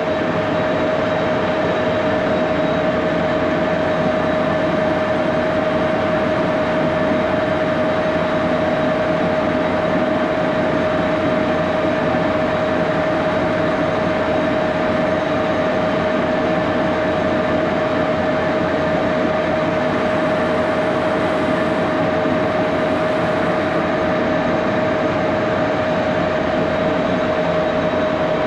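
Axelson engine lathe running steadily at about 628 RPM with a steady whine over the machine noise. It is taking a light hand-fed cut on a 12L14 steel piece held about 13 inches out from the spindle bearings, and it cuts without chatter.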